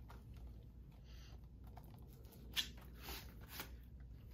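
Plastic Blu-ray case being handled: faint rustling with a few light clicks and taps, the sharpest about two and a half seconds in and two smaller ones soon after.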